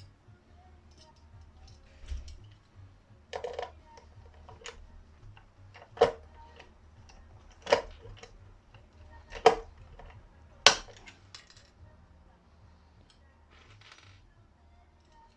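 Small metal parts or tools being handled: about six sharp metallic clinks and knocks at uneven intervals, a few with a short ring, over a faint low hum.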